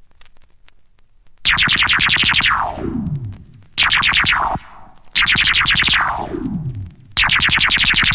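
Synthesized laser-pistol sound effect: four shots after a quiet first second and a half, each a buzzing zap whose pitch falls steeply, about one and a half to two seconds apart.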